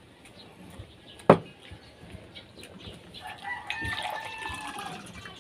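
A rooster crows once, a long call of about two seconds starting a little past the middle. Earlier, a single sharp knock is the loudest sound.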